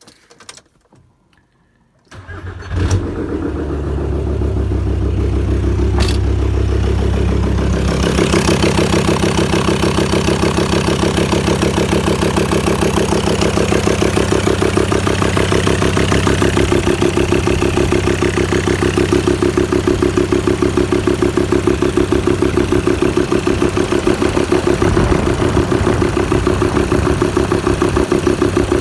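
VW T5 2.5 TDI inline five-cylinder diesel cranked and started about two seconds in, then idling with a steady, even knocking rhythm. The knock is an intake valve that still taps despite new hydraulic lifters and a new camshaft; the mechanic holds that only a new cylinder head will cure it.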